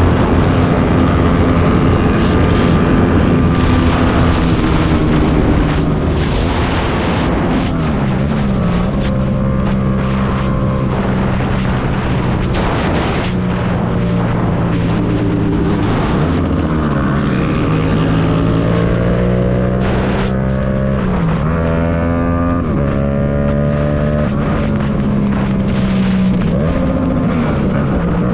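Yamaha MT-07's 689 cc parallel-twin engine pulling under way, its revs climbing and dropping several times as it shifts through the gears.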